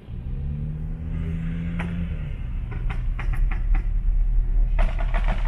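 Sports car engine running under acceleration, a strong low rumble with a steady hum in the first two seconds, then sharp crackling pops from the exhaust in clusters from about two seconds in, the last near the end.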